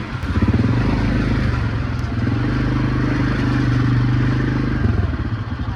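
ATV engine running steadily under throttle, picking up just after the start and easing off about five seconds in.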